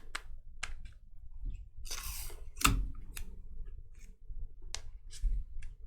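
Trading cards and their packaging being handled: a series of sharp clicks and snaps, with a short rustle about two seconds in.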